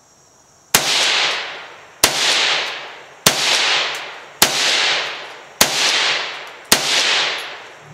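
Magnum Research MLR-1722M semi-automatic rifle in .22 Magnum (.22 WMR) firing six shots in steady succession, a little over a second apart. Each sharp crack is followed by an echo that dies away over about a second.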